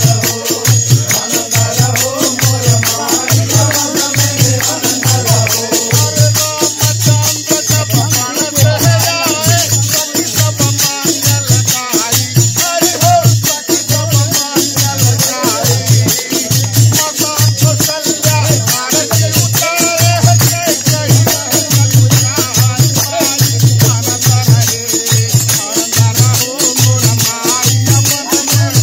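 A group of men singing a Holi folk song together over a steady drum beat, with cymbals and a wooden kartal rattle jingling throughout.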